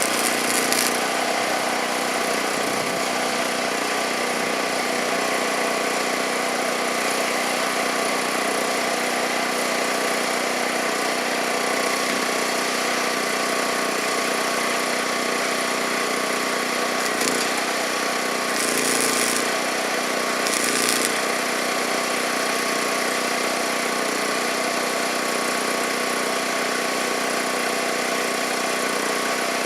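A small engine running steadily at an even speed, with a few short bursts of hiss about two-thirds of the way through.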